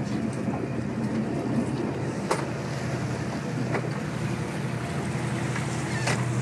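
Boat engine running steadily under way, with a few light sharp clicks a couple of seconds apart.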